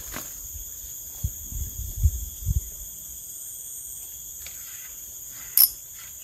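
Steady high-pitched chirring of forest insects, with a few dull low thumps between about one and two and a half seconds in and a sharp click near the end.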